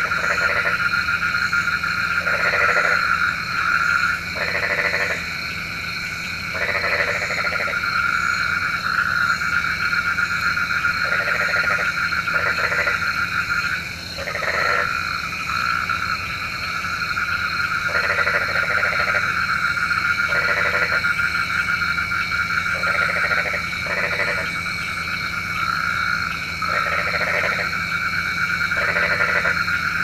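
Frogs croaking: short, repeated croaks come about every two seconds, some in quick pairs, over a steady high-pitched background chorus.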